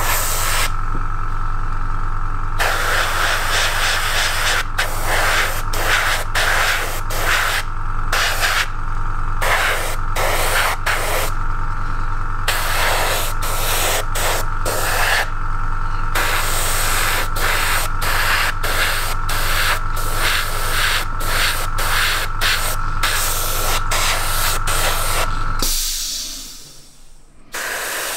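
Airbrush spraying primer in many short on-off bursts over the steady hum of its air compressor. Near the end the compressor and the spraying stop.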